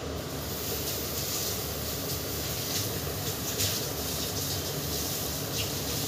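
Steady rushing background noise, like a running fan, with a few faint clicks scattered through it.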